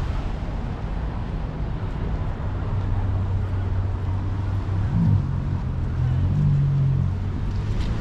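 Steady low engine hum over a rumbling outdoor background, its pitch wavering briefly about five seconds in.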